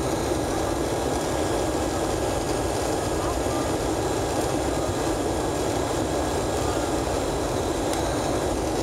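Steady cabin noise of a Boeing 767 in flight: the even rush of its twin turbofan engines and the airflow, heard through the fuselage at a window seat.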